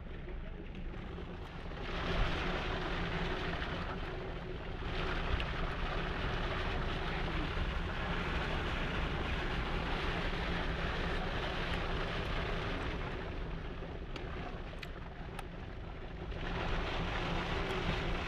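Heavy rainstorm: a steady rushing of rain and running water over a low rumble, swelling about two seconds in, easing for a while near the end and then rising again.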